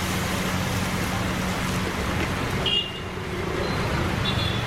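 Steady rushing of a high-pressure gas burner under a wok, with a low hum. About three seconds in it drops suddenly and builds back over about a second, with two short high rings near that point and about a second later.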